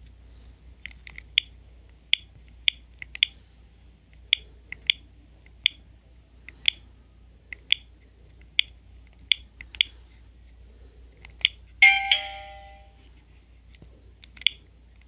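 Sony Ericsson K310a mobile phone: a run of sharp, irregular keypad clicks, one or two a second, then near the end a short, loud chime from the phone that rings out for about a second before two more clicks.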